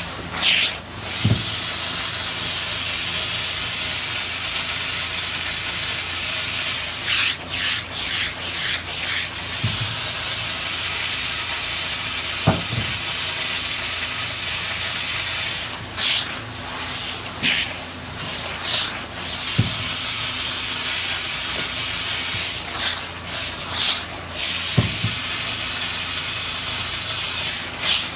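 Hose-fed steam iron passing over a fur coat, letting out loud bursts of steam hiss in short clusters every several seconds over a steady background hiss.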